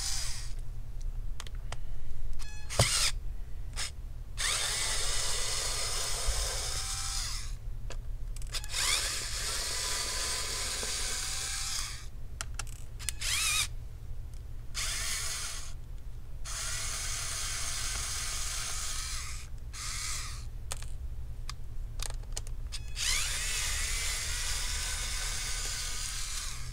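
Electric precision screwdriver backing out the small Phillips screws that hold a laptop battery, its motor whining in a series of short runs with brief stops between.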